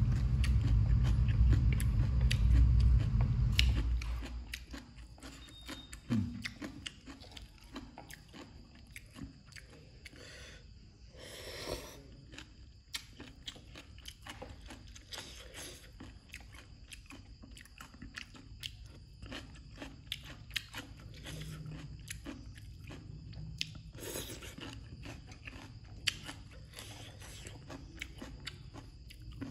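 Close-up chewing and crunching of papaya salad: many small crunches and wet mouth clicks. A loud low rumble fills the first four seconds, then stops.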